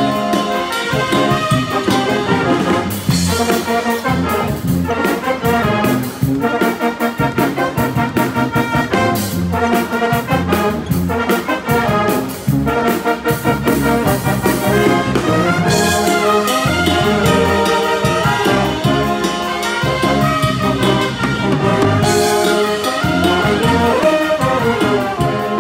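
Brass pep band playing an upbeat tune, with trumpets and trombones over a steady drum beat.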